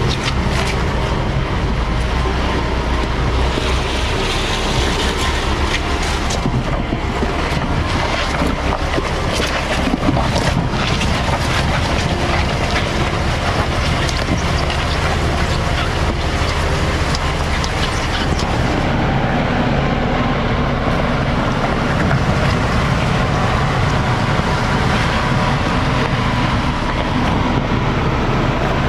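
Jeep SUV driving on an off-road trail: steady engine and running-gear noise.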